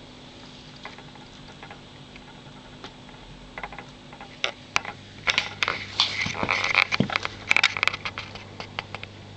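Steady low hum of a submersible aquarium pump, heard from underwater. About halfway through comes a dense run of sharp crackling clicks and knocks lasting about four seconds, in churning water near the pump.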